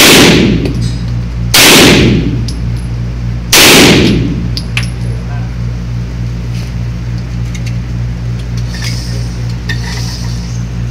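9mm pistol fired three times, the shots about a second and a half and then two seconds apart, each one echoing off the hard walls of an indoor range. A steady low hum runs underneath.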